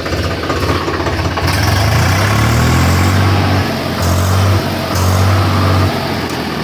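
Swaraj 735 FE tractor's three-cylinder diesel engine being revved from idle: the pitch climbs about a second and a half in and holds, then two shorter revs follow before it drops back to idle near the end.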